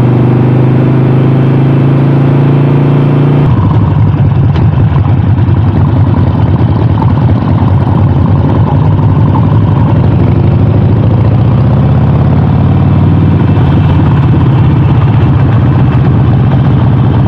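Harley-Davidson Sportster 48's V-twin running under way, loud and steady. About three and a half seconds in, the sound changes abruptly from a smooth drone to a rougher, rapidly pulsing note.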